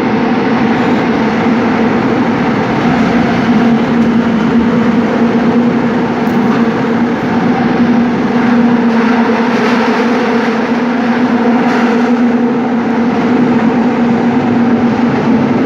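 Seoul Subway Line 5 train running at speed, with a steady rumble of wheels on rail and a constant low hum.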